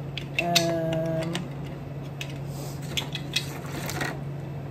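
Small plastic clicks and taps as Bitty Pop mini figures and their clear plastic display case are handled. Near the start there is a brief steady hummed tone lasting about a second.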